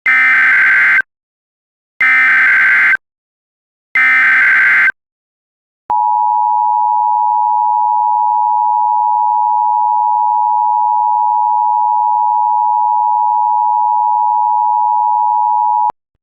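Emergency Alert System SAME header: three one-second bursts of warbling digital data two seconds apart. About six seconds in, the two-tone EAS attention signal (853 and 960 Hz together) starts and holds steady for about ten seconds, marking the start of an emergency alert.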